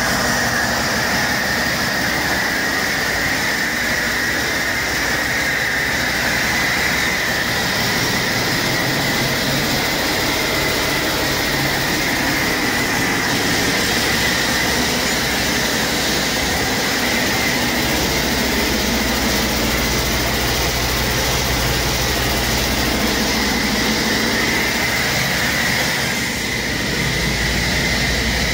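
Cummins ISX15 15-litre inline-six diesel running steadily on an engine test stand, with a steady high whine above the engine note.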